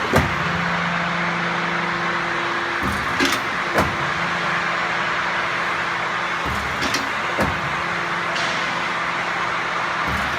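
QC11Y CNC hydraulic guillotine shear running, its hydraulic pump keeping up a steady hum and hiss. A low tone in the hum breaks off and returns three times, about every three and a half seconds, each change marked by sharp clacks, typical of the shear's valves switching through its working cycle.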